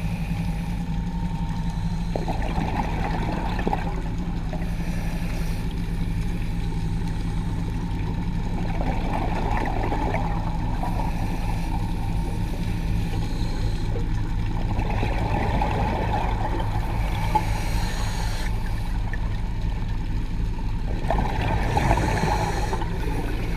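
Underwater sound through a camera housing: a steady low hum, with a rush of scuba regulator exhaust bubbles every six seconds or so as a diver breathes out.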